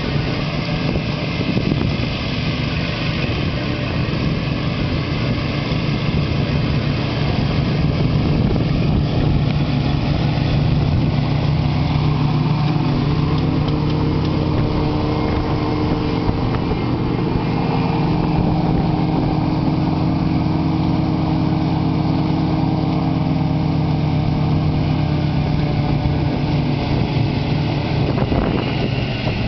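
Petrol ride-on lawn mower engine running steadily.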